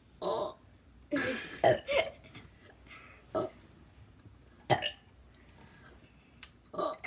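Boys burping on purpose, trying for the loudest: several separate short burps, the longest and loudest about a second in.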